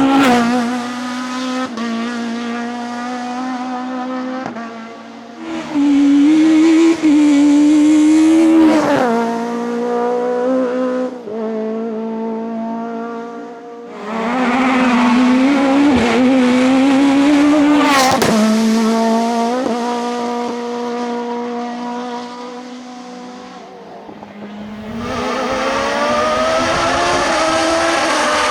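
Race car engines under hard acceleration up a hillclimb course, each pitch climbing and then dropping sharply at the gear changes. The sound swells loud as a car passes and fades between cars, about three times, with two sharp cracks near the middle.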